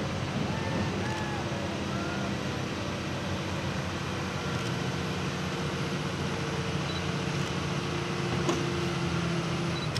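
Stewart & Stevenson 4x4 military truck's diesel engine running hard and steady under load as it drags a heavy weight-transfer pulling sled.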